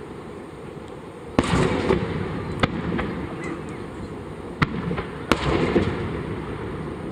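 Aerial fireworks shells bursting: sharp bangs about a second and a half in, near three seconds, and twice more between four and a half and five and a half seconds, each followed by a rolling, crackling rumble.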